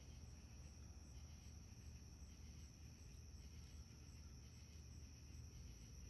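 Faint night insects calling: a steady high-pitched trill with a row of faint, evenly spaced ticks above it, over a low rumble.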